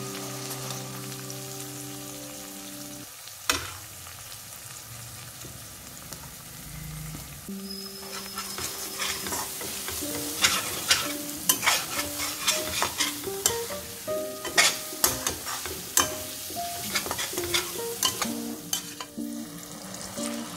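Spiced masala sizzling in oil in a stainless steel pan while a slotted metal spatula mashes boiled potatoes and stirs. There is a sharp knock about three and a half seconds in, then frequent scrapes and clicks of the spatula against the pan from about halfway.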